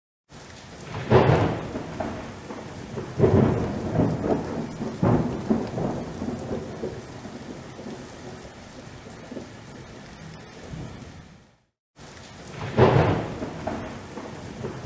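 Thunderstorm sound: rolling thunder over steady rain. Heavy rumbles come about one, three and five seconds in and fade into the rain. The sound cuts to silence near the end and then starts over with another rumble.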